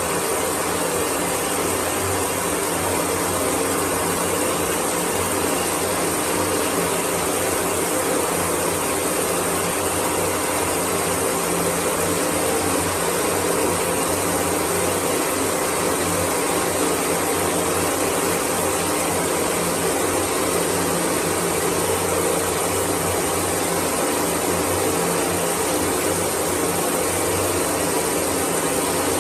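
Water spraying steadily from a handheld shower head, a constant even hiss of running water.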